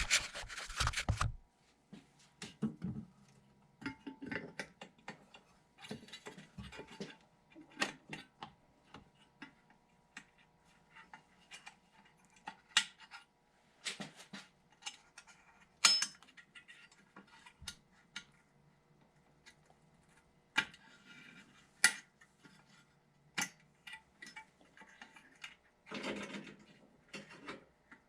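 Hands fitting an LED headlight bulb into its housing and working its wire retaining clip: scattered sharp clicks, taps and short rustles of metal and plastic parts, with pauses between them.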